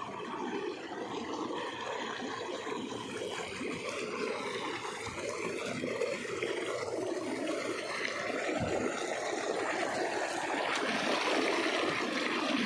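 Steady rushing noise of running water, like a forest stream, growing slightly louder toward the end.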